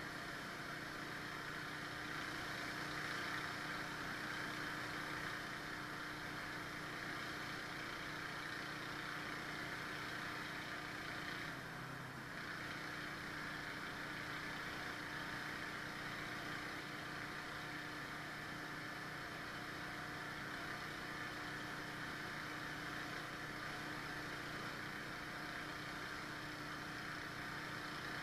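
Pressure washer's gasoline engine running steadily, with a brief dip in its sound about twelve seconds in.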